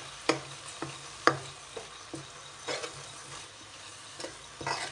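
A spoon scraping and knocking against the side of a metal pot while it stirs grated coconut masala frying dry with spice powders, in sharp, irregular clinks about twice a second. Under it run a light hiss and a low steady hum.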